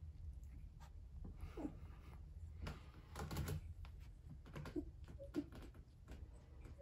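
Faint rustling and scattered soft clicks from two-week-old Goldendoodle puppies squirming in a pile on a fleece blanket, with a few brief low grunts, over a steady low room hum.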